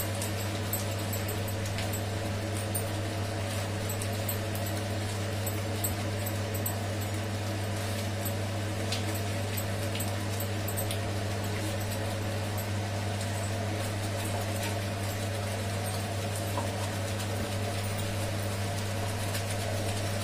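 Thick onion-tomato masala gravy simmering in a pan, with faint scattered crackles from its bubbling, under a steady low hum.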